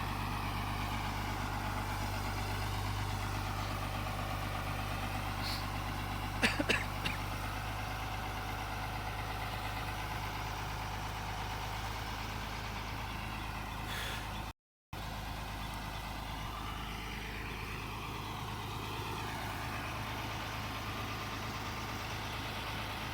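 Tata Hitachi 200 excavator's diesel engine running steadily, with a few sharp clanks about six and a half seconds in. The sound drops out for a moment a little past halfway.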